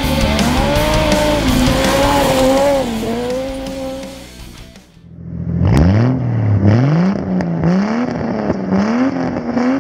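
Rally car engine running hard on a gravel stage, fading out about five seconds in. Then a car engine revs up and drops back several times in quick succession.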